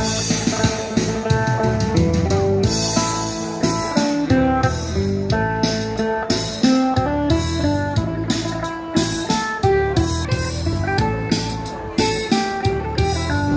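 Phin, the northeastern Thai (Isan) plucked lute, playing a quick picked melody of many short notes with steady bass underneath.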